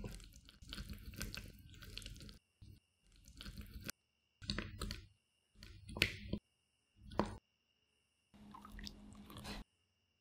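Silicone spatula stirring thick melted chocolate in a glass bowl: wet stirring strokes, close together for the first few seconds, then about four separate strokes with short gaps, stopping shortly before the end.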